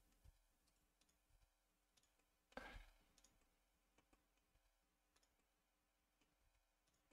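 Near silence, with a few faint computer mouse clicks and one brief, slightly louder soft noise about two and a half seconds in.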